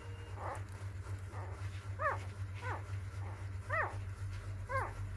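Four-day-old newborn puppies whimpering: short, high-pitched cries, each rising and then falling in pitch, about one a second.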